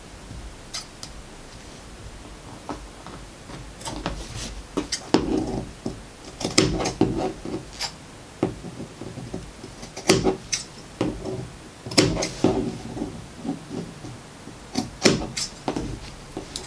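Fabric scissors cutting along the curved edge of cotton wax-print fabric: short runs of sharp snips, with the cloth rustling as it is handled between them.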